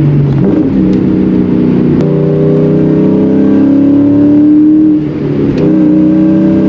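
1999–2004 Ford Mustang engine heard from inside the cabin, pulling hard under acceleration with its pitch climbing steadily. Around five seconds in it drops sharply for a manual gear shift, then carries on pulling.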